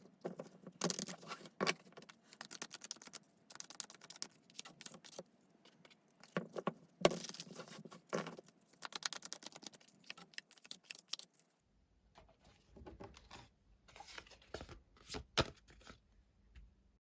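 Tarot cards being shuffled and handled, in dense runs of quick flicking clicks and rustles. After about twelve seconds the sound changes to sparser taps over a faint low hum.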